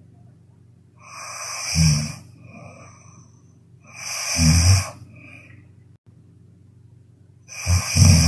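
A sleeping woman snoring loudly, three snores about three seconds apart. Each is a breath that swells and ends in a low, vibrating snore. The third begins near the end.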